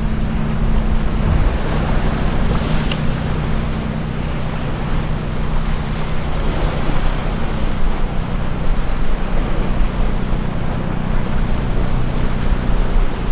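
Small ocean waves surging and splashing over the boulders of a rock jetty, with wind buffeting the microphone in a steady low rumble.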